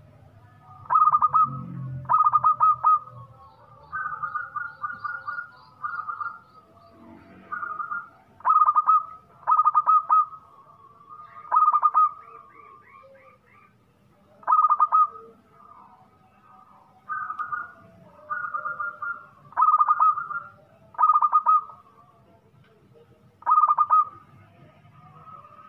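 Local zebra dove (perkutut) singing: repeated loud phrases of rapid staccato coos, a phrase every second or two with short pauses between.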